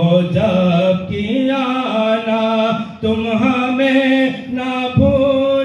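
A man chanting a devotional recitation in long held notes that waver in pitch, with short breaks between phrases about every second.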